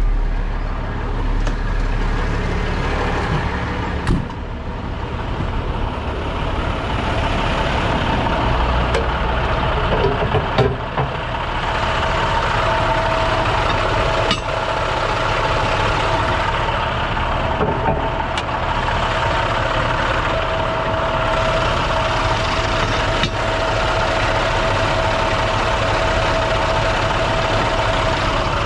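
Heavy-duty truck's diesel engine idling, with a few short clicks and knocks; a steady whine joins in about twelve seconds in.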